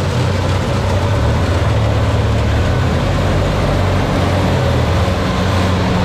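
Kubota rice combine harvester running under load as it cuts and threshes standing rice: a steady low engine hum under dense mechanical noise from the cutter and threshing drum.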